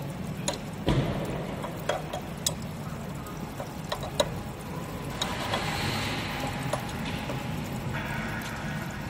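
Steady low hum of the chain link fence machine, with scattered sharp metallic clicks and taps as its adjusting screws are loosened and tightened with a tool. A rushing noise swells for a few seconds past the middle.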